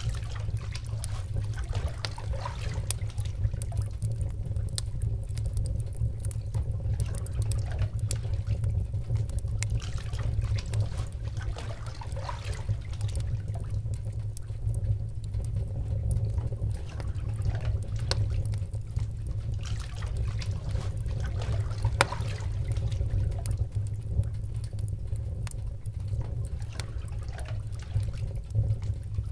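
Water trickling and splashing over a steady low rumble, with scattered small clicks.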